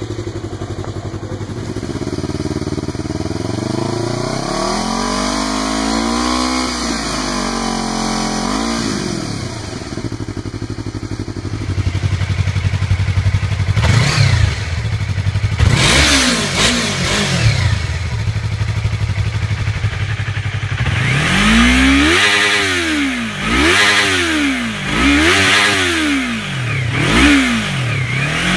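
Yamaha YZF-R3 parallel-twin engine revved while parked, heard through three exhausts in turn. First an Akrapovic exhaust idles and is revved up and down slowly. Next a Yoshimura slip-on gets a few sharp throttle blips. Last, the stock exhaust is revved hard to the rev limiter about six times in quick succession.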